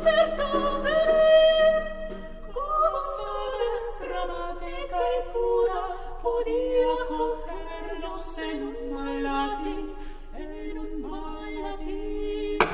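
A tenor singing a solo passage of a 17th-century Spanish song in short, expressive phrases with vibrato.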